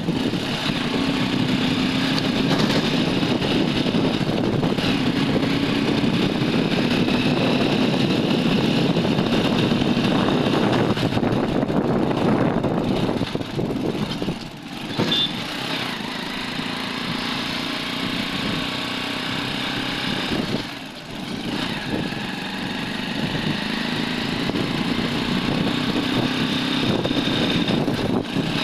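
Vehicle engine running while driving along a street, with road and wind noise; the engine note rises and falls with speed and dips briefly twice, about halfway and three-quarters of the way through.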